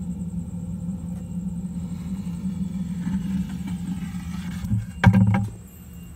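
A steady low hum, broken about five seconds in by one sharp, loud knock against the plastic bucket as it is handled.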